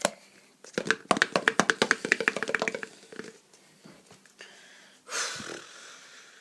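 A rapid run of light taps, about ten a second for roughly two seconds, followed by a short rustle about five seconds in.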